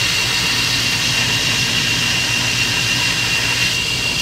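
Belt grinder running while the walnut handle block and wrought-iron bolsters of a knife are ground to shape against the belt: a steady motor hum under a continuous high hiss, with a thin steady whine on top.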